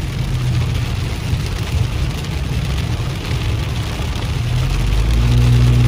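Heavy rain pelting a car's windshield and roof, heard from inside the cabin, over the steady hum of the engine and tyres on a wet road. The engine hum grows louder near the end.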